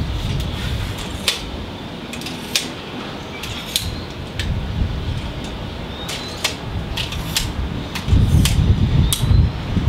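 Manfrotto Befree travel tripod being set up by hand: sharp clicks and knocks from its leg catches and legs as they are set and extended, scattered through, over a low rumble of wind on the microphone that grows stronger near the end.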